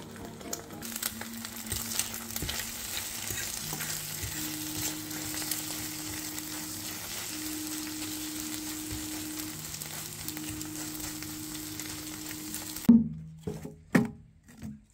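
Food sizzling and crackling as it cooks, a steady hiss with faint held low tones underneath. It cuts off abruptly near the end, followed by a few short knocks.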